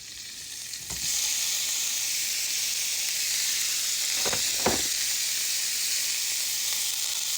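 Cut-up lean beef sizzling in olive oil in a hot skillet. The sizzle swells about a second in, then holds steady, with two short knocks about halfway through.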